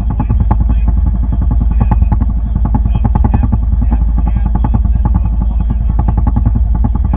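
A boat engine running steadily, with a fast, even pulsing over a heavy low rumble.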